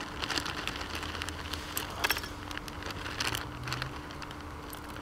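Plastic food bag crinkling and rustling in gloved hands in irregular bursts as food is shaken out of it into a pot.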